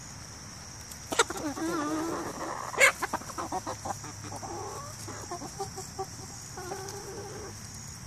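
A flock of chickens clucking and calling, with a drawn-out wavering call from about one to three seconds in, broken by two sudden sharp sounds, the second the loudest, then a run of shorter, softer clucks. A faint steady high-pitched whine runs underneath.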